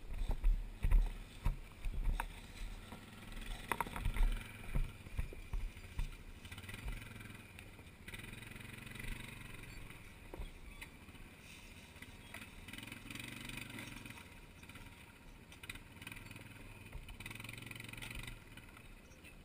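ATV engine running at low revs while the quad is eased down over rocks. Scattered knocks and low thumps come in the first few seconds.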